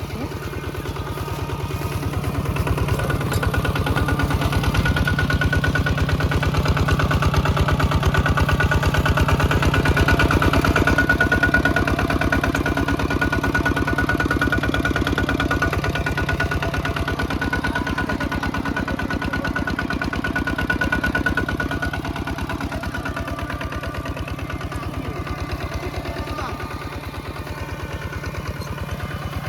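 Mini tractor's engine running steadily with a fast, even beat while ploughing in mud. It grows louder over the first ten seconds or so, then slowly fades.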